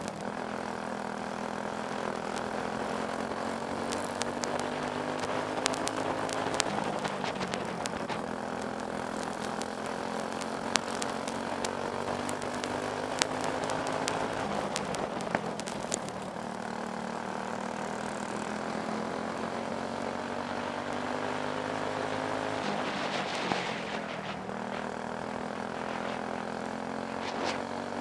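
Briggs & Stratton Animal single-cylinder four-stroke kart engine at racing speed, heard from the driver's helmet, its pitch rising along the straights and dipping when the driver lifts for the turns, twice: a bit past halfway and again near the end. Occasional sharp ticks sound over it.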